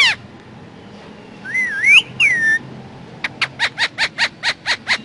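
Ring-necked parrot calling: a couple of whistled, warbling calls, then a fast run of about a dozen short, sharp calls at roughly five a second.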